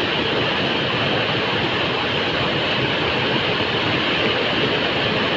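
Steady, loud rush of fast-flowing water.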